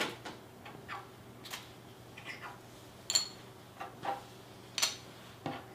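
Poker chips clicking as they are picked up off a wooden table and dropped one at a time into a small zippered pouch: a string of light, sharp clicks, a few with a brief bright ring.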